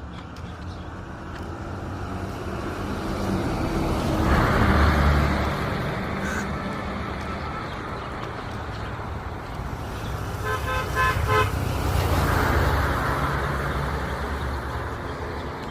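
Road traffic passing, with vehicles going by in two swells, and a horn beeping in a quick series of short toots about ten seconds in.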